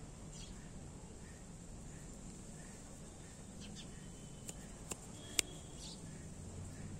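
Faint outdoor background noise with a few short, high bird chirps scattered through it, and a sharp click about five and a half seconds in.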